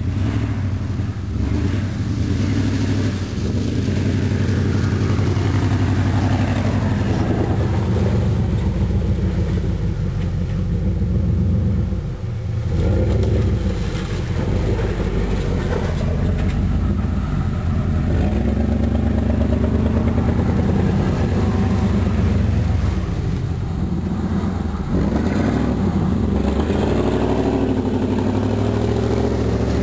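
1993 Chevrolet Silverado's 305 cubic-inch V8 running loudly, its engine speed rising and falling again and again as the truck is driven, with a brief dip about twelve seconds in.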